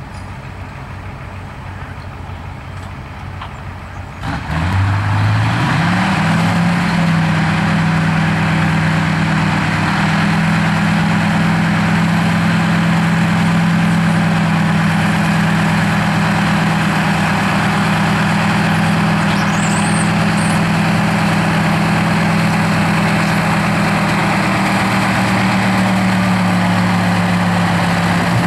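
Oliver 2255 tractor's Caterpillar V8 diesel idling, then throttled up about four seconds in, climbing quickly in pitch. It is held at high, steady revs as the tractor pulls down the track.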